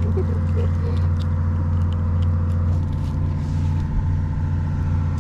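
Fishing boat's onboard engine running, a steady low drone, with a few faint clicks on top.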